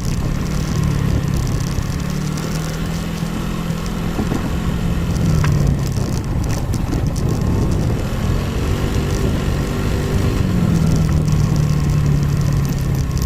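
A vehicle's engine running steadily under the noise of the ride; its note drops about five seconds in and comes back stronger near ten seconds.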